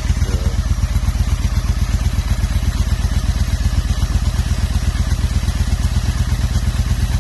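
Honda Shadow 750 V-twin engine idling steadily, its exhaust pulsing evenly. The engine is running lean from a vacuum leak at the carburetor intake boots.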